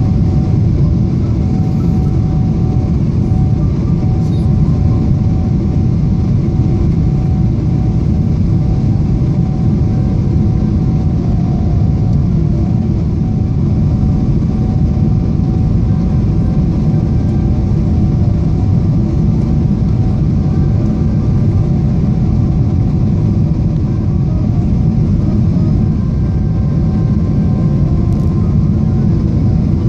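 Steady cabin noise inside a Boeing 777-300ER airliner in flight: the even rush of its GE90 jet engines and airflow past the fuselage, with faint steady tones over the low noise.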